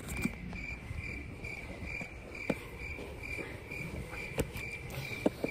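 A high-pitched chirp repeating steadily, a little more than twice a second, with phone handling noise: fabric rubbing and a few sharp knocks, the loudest a little after four seconds and near the end.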